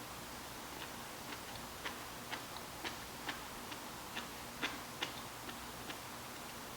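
Faint, short clicks about two a second, slightly uneven: wet mouth sounds of someone chewing food close to the microphone.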